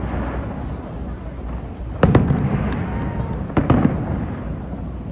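Aerial fireworks bursting: a sharp bang about two seconds in, a smaller crack, then two more bangs in quick succession a little later, over a continuous low rumble of booms and echoes.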